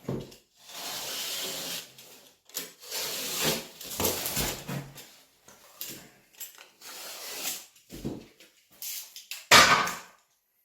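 Gypsum board being cut by hand in long scraping strokes along marked lines, with a loud sharp knock near the end.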